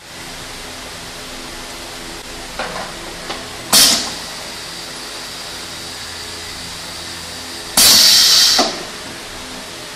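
Pneumatic piston filling machine cycling: sharp hisses of compressed air from its air cylinder, a short one about four seconds in and a longer one of nearly a second near the end, over a steady hum.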